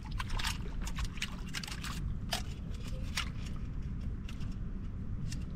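Scattered sharp clicks and scrapes of a thin metal rod poking against rock in shallow water while probing a crab's hole, over a steady low rumble.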